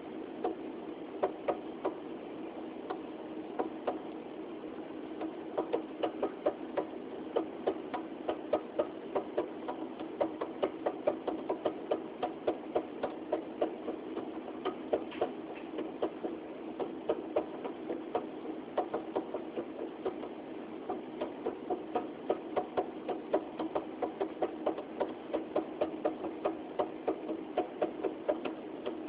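Refrigerator running with a steady hum, overlaid by irregular rapid ticking, about two or three clicks a second: the unexplained weird noise coming from the fridge.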